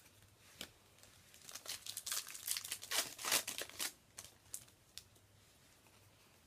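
Foil Yu-Gi-Oh booster pack wrapper crinkling and tearing open: a dense run of crackles for about two seconds in the middle, with a few lone clicks and rustles around it.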